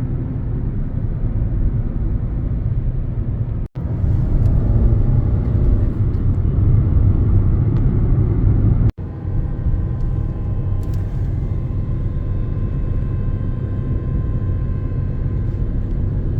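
Car driving on the road: a steady low rumble of engine and tyre noise. It breaks off abruptly for an instant twice, about 4 and 9 seconds in.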